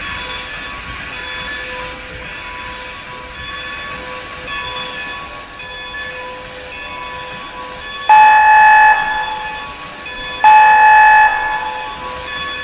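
Steam whistle of Strasburg Rail Road No. 90, a 2-10-0 steam locomotive, sounded in two blasts of just under a second each, about a second and a half apart, near the end. Beneath them the train runs steadily, with a faint beat about once a second.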